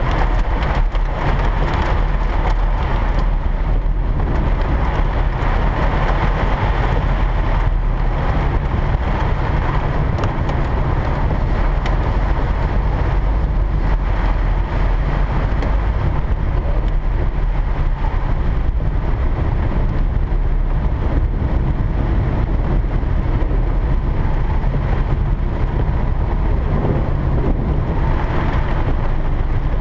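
A car driving in heavy rain, heard from inside the cabin: a steady low rumble of the car on the wet road, with rain falling on the car. No sudden cracks or claps of thunder stand out.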